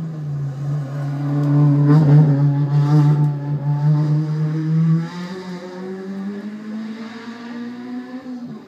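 A race car's engine driving past at speed, its note held steady and loudest about two seconds in, then falling away abruptly around five seconds as the pitch creeps back up.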